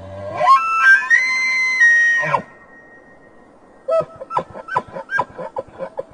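Bull elk bugling. A low start climbs into a high whistled note that holds for over a second, then drops away. This is followed by a rapid run of short chuckles, about ten of them.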